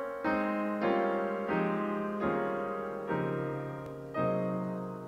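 Solo piano introduction to a slow ballad: chords struck one after another, about one every three-quarters of a second, each ringing and fading before the next.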